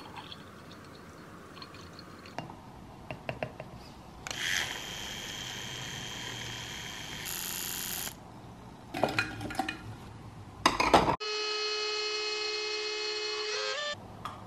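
Handheld milk frother whirring for about four seconds in a glass mason jar of milk and protein shake, rising in pitch shortly before it stops. Then come glassy knocks and clinks, and a steady tone of several pitches for about three seconds, stepping upward at its end.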